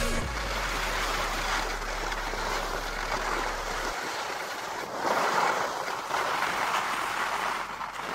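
Skis sliding over snow: a steady rushing, scraping hiss that swells louder about five seconds in and eases off near the end.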